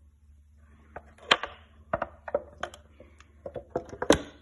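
Engine parts being handled: a run of about ten sharp clicks and knocks of hard parts, the loudest about a second in and near the end, over a faint steady low hum.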